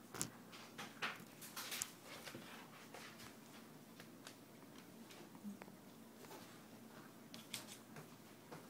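Pomeranian chewing and gnawing on a plush toy: faint, irregular soft clicks and mouth noises, a few sharper ones in the first couple of seconds and again near the end.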